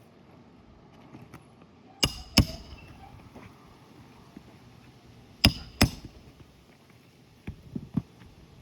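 Hammer blows: two pairs of sharp strikes, then three lighter taps near the end.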